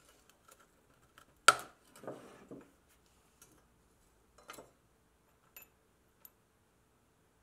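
A small flat blade prying a metal plate off a rusted pressed-steel Tonka toy-truck part: the plate snaps free with a sharp metallic click about one and a half seconds in and clatters onto a wooden workbench. A few lighter knocks and clicks follow as the steel part and small pieces are handled.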